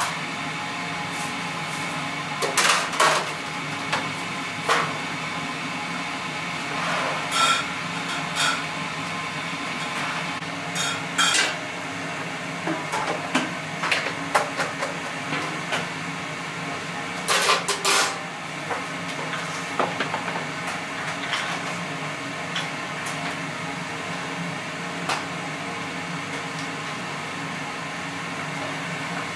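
Busy kitchen: irregular clanks and knocks of metal utensils against pans and dishes over a steady background hum.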